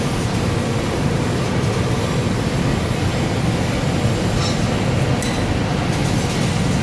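CNC fiber laser cutting machine running: a steady mechanical rumble with hiss, and a few faint clicks in the second half.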